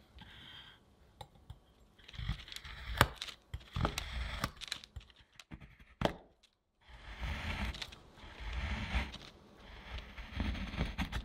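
A large kitchen knife chopping a bar of dark chocolate on a wooden cutting board: crisp, crunchy shaving sounds in repeated bursts, starting about two seconds in, with a few sharp knocks of the blade on the board. There is a short silent break just after the middle.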